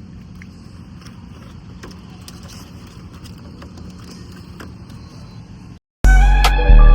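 A low, steady rumble with a few faint ticks cuts off about six seconds in. Loud music with deep bass and drum hits starts straight after.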